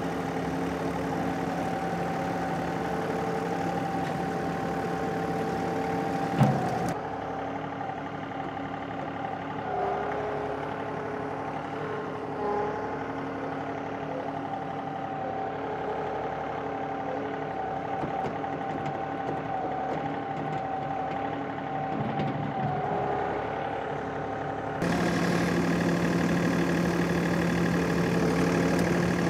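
John Deere compact tractor's diesel engine running steadily, its pitch shifting a little now and then, growing louder near the end.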